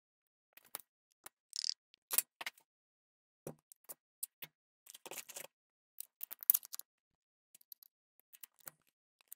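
Instant scratch-off lottery tickets being scratched and handled: scattered short scratches and light clicks with quiet gaps between them.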